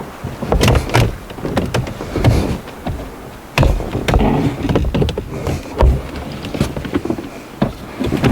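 Hard plastic trim knocking and clunking irregularly as a car's center console is lowered and worked into place around the gear shifter, with scraping and handling noise between the knocks.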